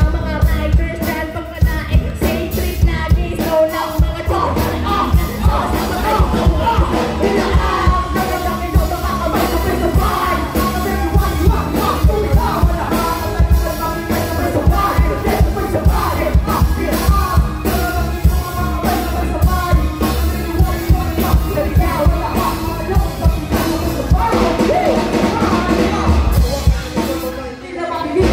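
Live band music through PA speakers: a drum kit beat and keyboard, with vocals from mic-held performers over it. The loudness dips briefly near the end.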